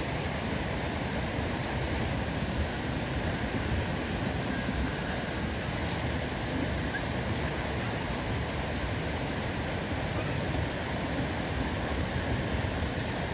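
Steady, even rushing noise with no distinct events and no animal calls.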